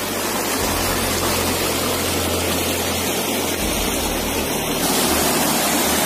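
Water rushing over the stepped rock ledges of a shallow waterfall: a steady, even rush of falling water, a little louder and brighter from about five seconds in.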